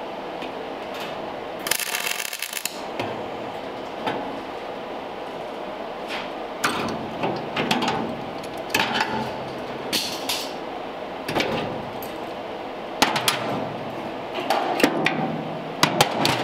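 A short weld bead on steel box tubing: about a second of crackling arc near the start. Then scattered metallic clanks and clicks as locking pliers and the steel are worked by hand.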